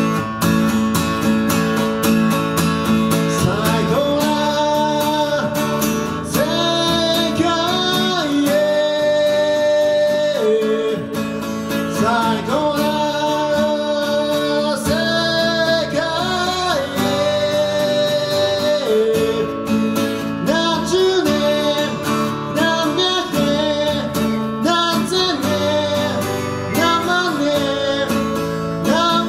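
A man singing to his own strummed acoustic guitar. The guitar plays alone at first, and the voice comes in about three seconds in, holding long notes.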